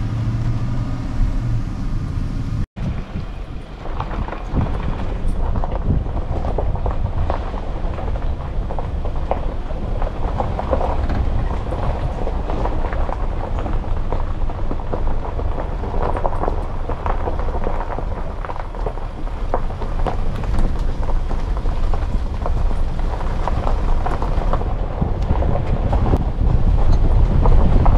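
Vehicle driving slowly on a gravel road: a steady low rumble with continual crunching and crackling of gravel under the tyres, with a brief dropout about three seconds in.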